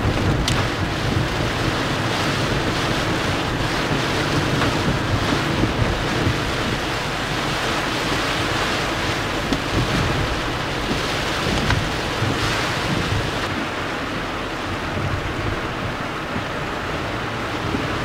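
Heavy typhoon rain and wind on a moving car, heard from inside the cabin: a steady rushing of rain and wet-road tyre noise over a low rumble.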